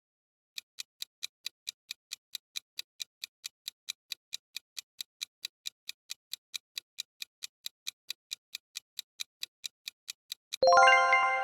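Countdown-timer ticking sound effect, about four even ticks a second for some ten seconds, then a bright chime rings out near the end, marking time up.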